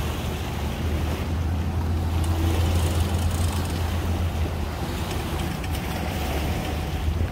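Steady low rumble of wind on the microphone mixed with engines running, with a faint thin whine coming in about five seconds in.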